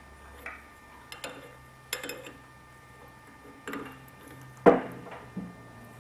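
Hydraulic fittings and hand tools being handled: irregular metal clinks and knocks, about seven in all, the loudest a little before five seconds in.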